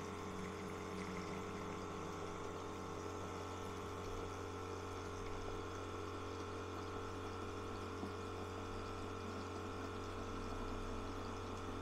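Tabletop semi-automatic liquid filling machine's electric pump running steadily with a constant hum, pumping water through its tube and nozzle into a one-litre plastic bottle during a timed fill.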